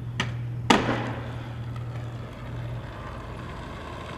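Aggressive inline skates: a light click, then a sharp smack about two-thirds of a second in as the skater lands, followed by a low steady rumble of the wheels rolling that fades out about three seconds in.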